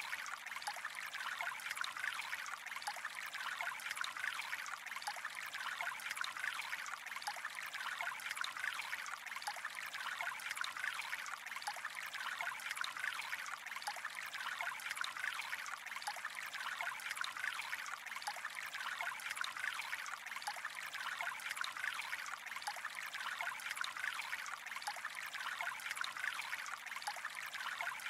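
Gently flowing water trickling and burbling steadily, without a break or change.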